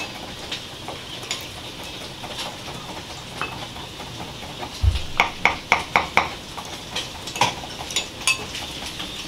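A metal spoon stirring and scraping in a ceramic bowl, clinking against its sides as sugar is dissolved into a sweet-and-sour fish sauce dip. About halfway through there is a dull thump, then a quick run of about six clinks.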